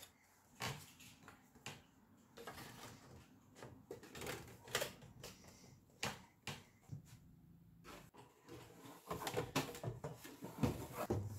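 Scattered clicks, scrapes and knocks of metal and plastic as the metal shield and then the plastic rear case of a Macintosh SE/30 are fitted back over the chassis, with a denser run of louder knocks near the end as the case goes on.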